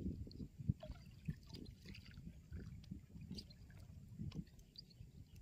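Water splashing and sloshing around a small boat being paddled through the water, with irregular low knocks and small drips.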